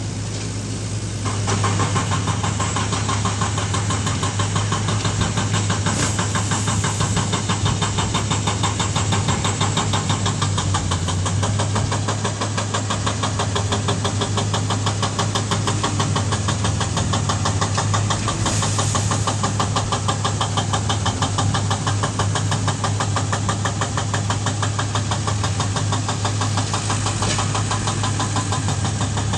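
Compact loader's diesel engine running hard with a rapid, even clatter as it pushes a bucketful of dirt; it revs up about a second and a half in and then holds steady.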